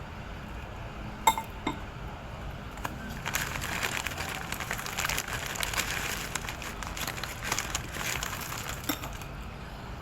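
A utensil clinks sharply against a dish with a short ring, followed by a second lighter click, then several seconds of close-up crackly chewing and eating noises.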